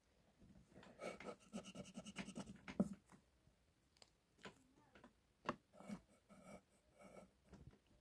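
Graphite pencil scratching on paper: a quick run of rapid back-and-forth hatching strokes for about two seconds, then a few separate strokes.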